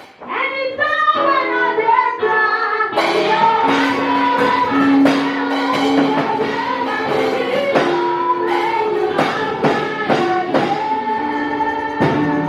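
Gospel song with group singing over a band; the music starts just after a brief pause and fills out with drum beats about three seconds in.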